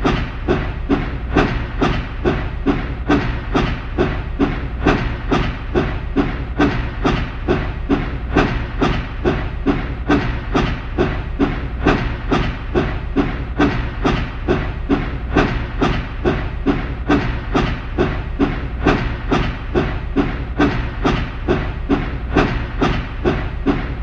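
Steam locomotive sound effect of a big engine puffing slowly: even, regular chuffs of steam, about two a second, over a steady low rumble.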